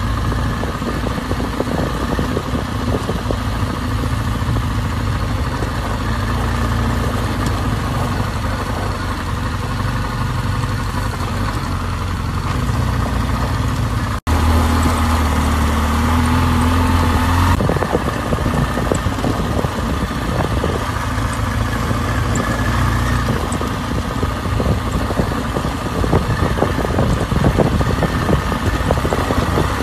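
Dual-sport motorcycle engine running as the bike rides a gravel canyon track, with steady engine noise throughout. The sound drops out for an instant about halfway, then the engine holds a steady note for a few seconds.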